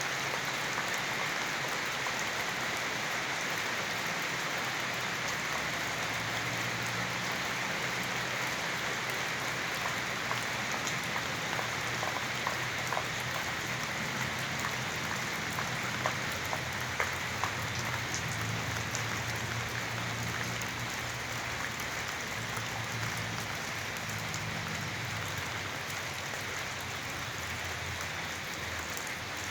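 Steady rain falling, with individual drops ticking sharply on a hard surface now and then.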